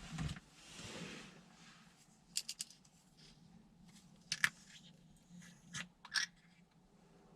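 A soft rustle about a second in, then scattered sharp clicks: a quick run of three, the loudest a little past halfway, and two more near the end.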